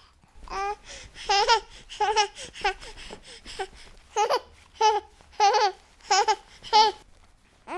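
Baby laughing: about a dozen short, high-pitched 'ah' bursts of giggling in a loose run, with brief pauses between them.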